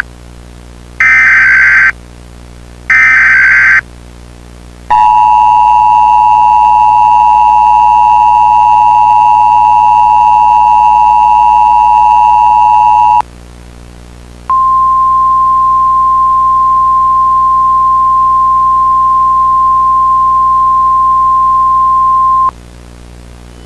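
Emergency Alert System activation tones. First come two short buzzing bursts of SAME header data, about a second each. Then the two-tone EAS attention signal (853 and 960 Hz) holds for about eight seconds, and after a brief gap a single steady 1050 Hz Weather Radio alert tone sounds for about eight seconds. Together they announce that an emergency alert message follows.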